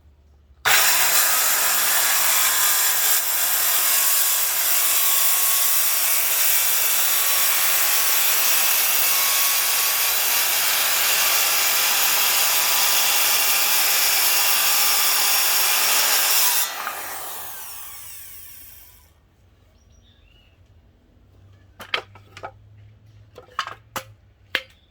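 Electric power saw starting up about a second in and cutting through 1.5-inch wood stock for about fifteen seconds, then its blade winding down with a falling whine once released. A few sharp knocks near the end.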